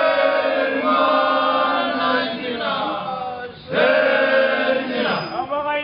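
Fijian men chanting together in long held notes for a yaqona (kava) ceremony, in two drawn-out phrases with a short break about three and a half seconds in.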